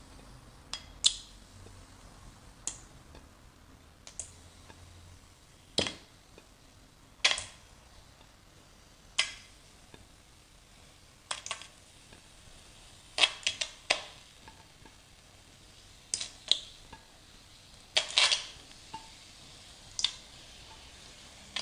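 Raw sausages set one at a time into a dry, preheated stainless steel pot, each landing with a short, sharp tap on the metal: about a dozen taps, one every second or two.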